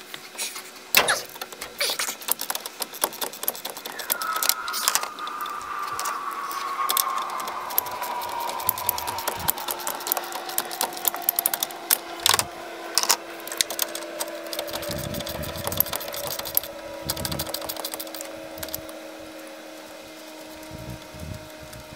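Impact wrench hammering a rusted shock-absorber fastener loose, with rapid mechanical chatter and sharp metal clicks and knocks. Under it run a steady hum and a whine that slowly falls in pitch from a few seconds in.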